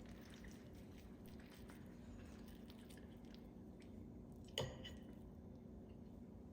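Faint chewing and small mouth sounds of someone eating, with one short sharp click about four and a half seconds in.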